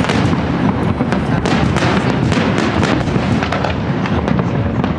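Fireworks display going off: many bangs and crackles overlapping in rapid succession over a continuous low rumble.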